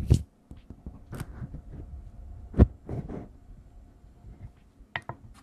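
Fingertips brushing, tapping and scratching directly on the X-Y microphone capsules of a TASCAM recorder, as close-up ASMR 'brain-picking' touches: scattered soft scratches and taps, with one louder thump about two and a half seconds in.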